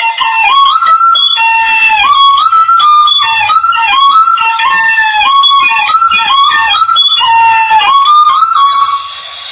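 Hmong raj (bamboo pipe) playing a melody of sliding, bending notes, rich in overtones. Near the end the tune breaks off briefly into a breathy hiss.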